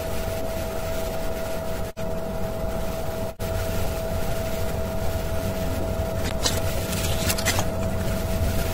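A steady machine hum with one constant tone that cuts out briefly twice. A few short scratchy sounds come near the end.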